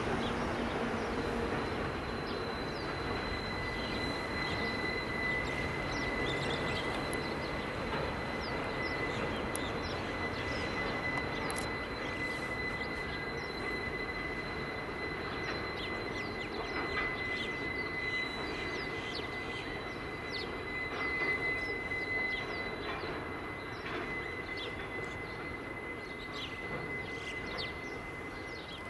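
Coal train wagons rolling past with a steady rumble of wheels on rail, over which a thin, steady high-pitched wheel squeal holds from a couple of seconds in to the end. Short high ticks are scattered through it.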